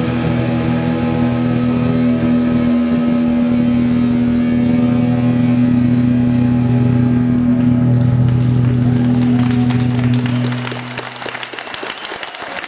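Live rock band holding one sustained chord, with audience applause rising under it. The chord stops about ten and a half seconds in, leaving the crowd clapping.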